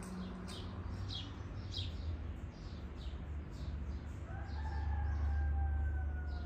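Small birds chirping, a quick series of short falling chirps, then about four seconds in a rooster crows once, one long call of about two seconds that sinks slightly in pitch. A low steady rumble runs beneath.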